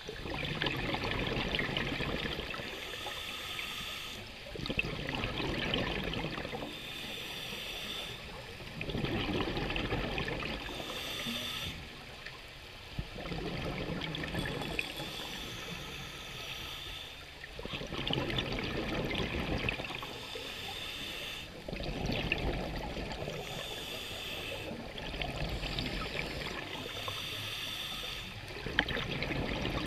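Scuba diver breathing through a regulator underwater: a hiss on each inhale alternates with a burst of bubbling on each exhale, about every four seconds.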